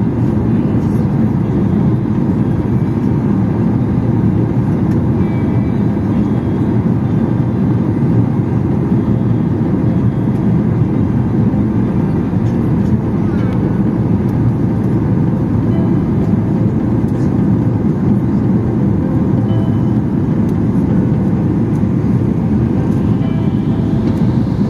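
Steady cabin noise of a Boeing 737 in flight on descent: engine and airflow noise heard through the fuselage, mostly low-pitched and even throughout. A faint rising whine begins near the end.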